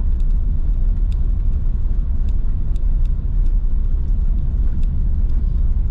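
Car driving on a gravel dirt road, heard from inside the cabin: a steady low rumble of tyres and engine, with a few scattered sharp ticks.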